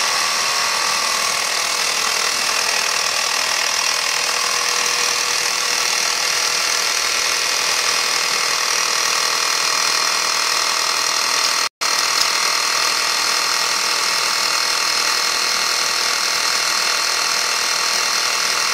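Mini portable tyre-inflator compressor, converted to a vacuum pump through its intake, running steadily and a bit noisily as it draws a vacuum on a jar vacuum chamber. The sound drops out for an instant about twelve seconds in.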